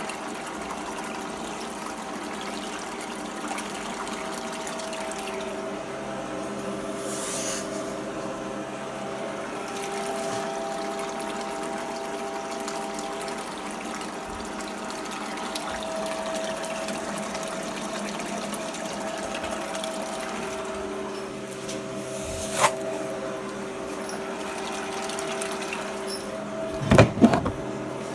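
Water running steadily down a small reduction sluice fed by a recirculating pump, with a steady hum through it. A sharp knock comes about two-thirds of the way through, and a short cluster of louder knocks comes near the end.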